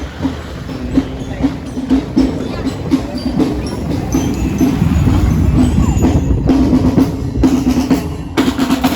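Drums beating in a quick, steady rhythm, loud, with many strikes a second over a continuous low tone.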